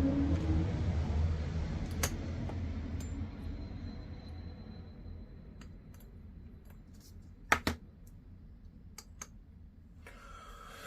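Light clicks and taps of small parts and tools being handled at a workbench, the loudest a pair of sharp clacks about two-thirds of the way through, over a low hum that fades away during the first half.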